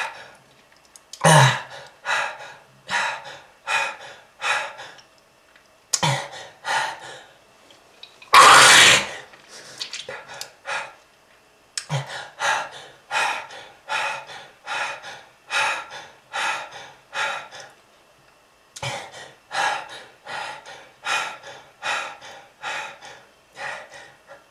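A smoker's coughing fits: runs of short hacking coughs about every two thirds of a second, in several bouts with brief pauses between. One much louder, longer harsh cough comes about eight seconds in.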